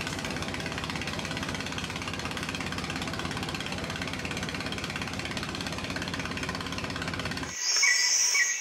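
Steady, loud drone of a boat's water-cooled inboard engine, heard on board. Near the end it is briefly cut off and replaced for about a second by a louder, high-pitched sound.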